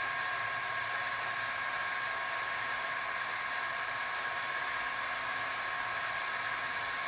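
A 1975 Solberga drill press running steadily while its drill bit cuts down into the bore of a steel gear to make a keyway. It gives an even motor whine with a thin high tone and a hiss, unchanging throughout.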